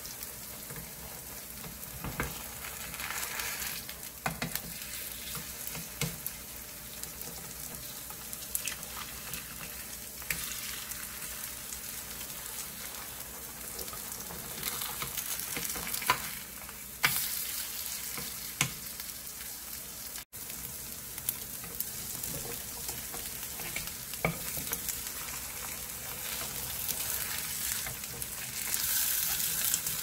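Gochujang lettuce pancakes with ground pork sizzling steadily in oil in a multi-well nonstick frying pan, with a few sharp clicks and scrapes as a nylon turner and wooden spatula flip them. The sizzle grows louder near the end.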